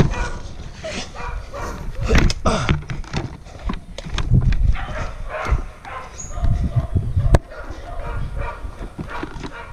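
A dog barking repeatedly, mixed with heavy thuds and rustling from the wearer moving quickly with a body-worn camera, and one sharp knock about seven seconds in.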